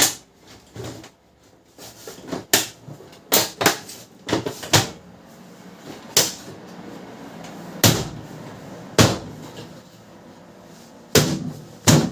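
Irregular sharp clicks and knocks of hard plastic printer casing parts being handled and fitted back together, about a dozen over twelve seconds.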